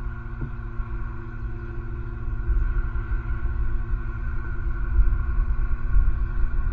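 Low, uneven outdoor rumble that grows louder toward the end, with a steady multi-tone hum above it.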